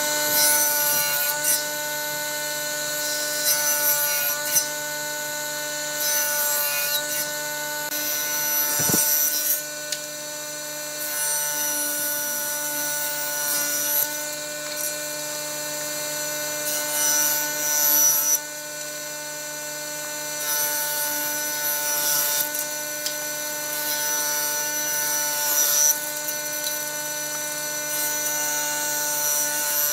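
A woodworking power tool's motor runs steadily with a constant pitched hum, while wood is worked against it in repeated passes, a rough rubbing and cutting sound that swells every couple of seconds.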